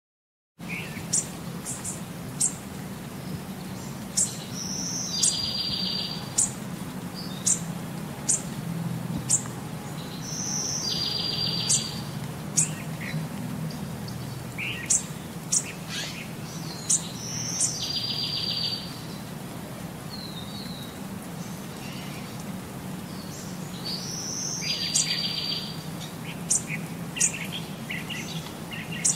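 Bird chirping, with sharp high chirps scattered throughout and a short buzzy trilled phrase repeated four times, about every six to seven seconds, over a low steady hum.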